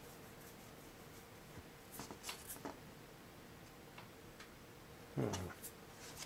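Faint, sparse clicks and ticks of the old switch and wiring being handled, over quiet room tone with a faint steady hum; a short, louder sound comes about five seconds in.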